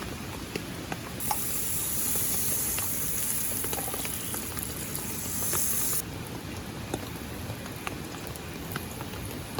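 Rain falling steadily, with scattered single drops striking close by. A loud steady hiss starts about a second in and cuts off suddenly about five seconds later.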